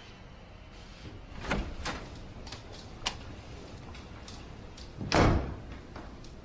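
A door being handled: a few light clicks and knocks, then a heavier thud just after five seconds in as it shuts.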